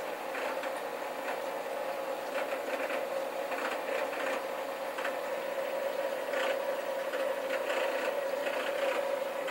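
Steady mechanical hum with a faint, irregular rattle, from the running aquarium equipment.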